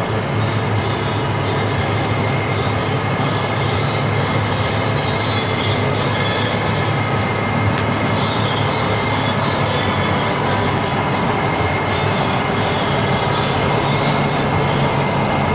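Aircraft tow tractor's engine running steadily as it tows a heavy aircraft, a continuous low drone with a thin steady high whine above it.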